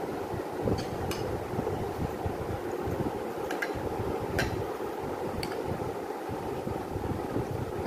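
A metal spoon scooping creamy fruit salad from a glass bowl onto a ceramic plate, with a few light clinks against the dishes scattered through it. A steady low background noise runs underneath.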